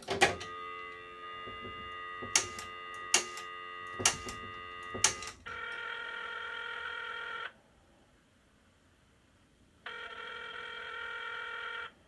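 Antique three-slot payphone heard through its handset earpiece. A click as the handset comes off the hook, then a steady tone for about five seconds broken by several sharp clicks. Then two bursts of ringing tone, each about two seconds long, with a pause between them.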